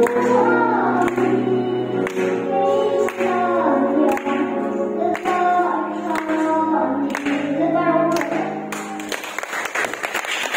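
A group of voices singing a hymn together in a reverberant church hall, with a faint beat about once a second. The singing stops about nine seconds in and clapping follows.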